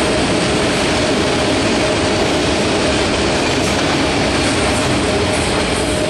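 Autorack freight cars passing at speed: a steady, loud rush of steel wheels on the rails, with a faint high tone running through it.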